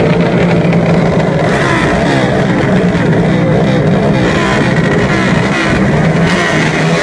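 Background rock music with guitar, playing steadily.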